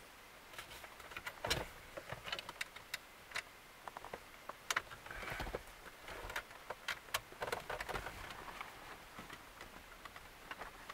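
Faint, irregular clicks, ticks and light scrapes of a T20 Torx driver being fitted into and turning the screws beneath a car radio head unit.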